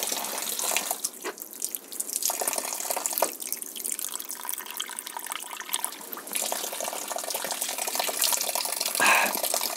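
A thin spring of water trickling and dripping down a rock face, splashing steadily into cupped hands.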